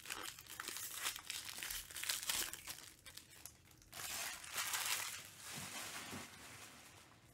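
Foil wrapper of a trading-card pack torn open and crinkled by hand. The crackling runs in two stretches, the second, loudest burst about four seconds in, then fades out.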